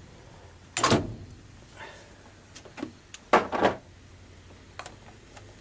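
Two loud clunks, about a second in and a little past the middle, with a few light clicks between them, from hand work on a carburetor's throttle linkage as it is taken apart.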